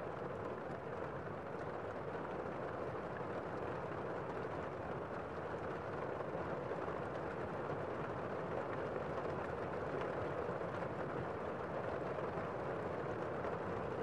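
Heavy rain heard from inside a room: a steady, muffled rushing with little high end.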